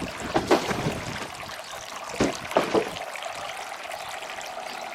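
Small garden water feature's little waterfall trickling and splashing steadily, with a few louder splashes in the first three seconds before it settles into an even trickle.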